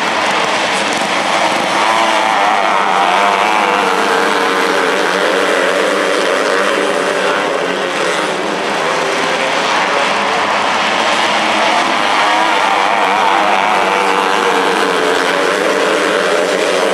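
A pack of 250cc micro sprint car engines racing around a dirt oval, several engines at once, their pitch rising and falling as the cars go down the straights and through the turns.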